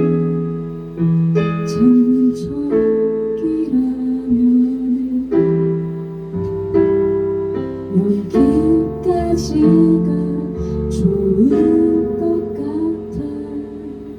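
Live band playing the song's closing instrumental bars after the last sung line, with sustained chords changing every second or two; the music grows quieter near the end.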